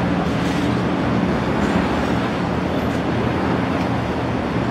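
Boeing 929 Jetfoil's onboard machinery running steadily during a fire pump test: a constant low hum under a broad, even rushing noise.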